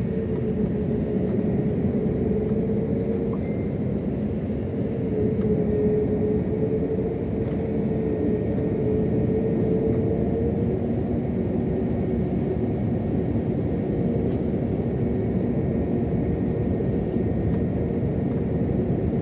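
Jet airliner cabin noise while taxiing, heard from a window seat: a steady low rumble of the engines and rolling with a hum that wavers slightly in pitch.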